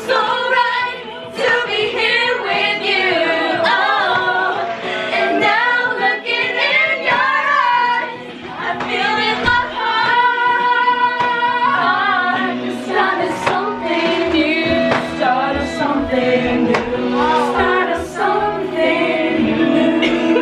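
Background music: a song with a woman singing over instrumental backing.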